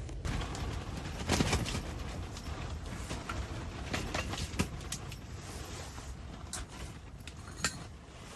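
Wind rumbling on the microphone, with scattered light knocks and clicks.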